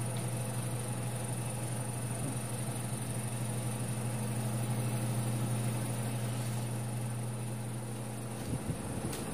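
Steady low electrical hum with a faint high whine and hiss, like a running room appliance. It cuts out about eight and a half seconds in, followed by a couple of soft knocks.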